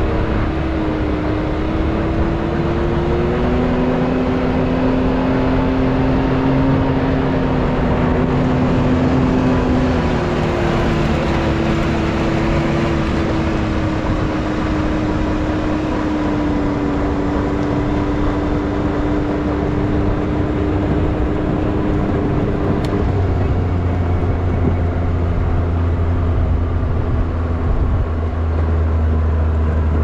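Can-Am X3 side-by-side driving steadily along a gravel road, its engine note drifting gently up and down over tyre and wind noise. A deeper hum joins about two-thirds of the way through.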